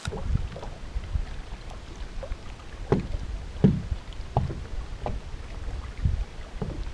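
Small waves lapping and slapping against a fishing boat's hull in quick, irregular knocks, over a steady low rumble.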